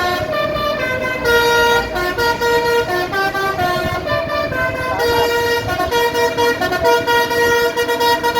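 Bus's basuri musical horn playing a tune of short, changing notes, with the engine running underneath.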